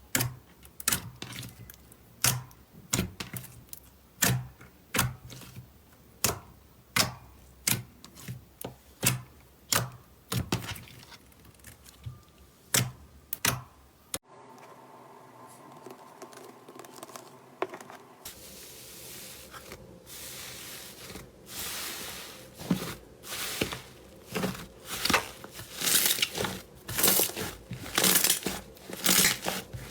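Slime being handled by hand: a run of sharp pops and clicks about twice a second, then, after an abrupt change, a soft hiss that builds into dense crackling and crunching, typical of crunchy slime being squeezed.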